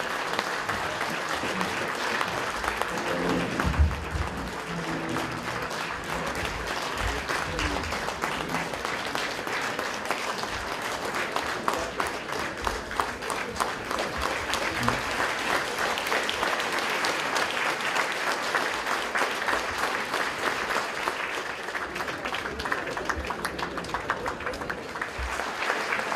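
A crowd applauding, sustained clapping that runs on without a break.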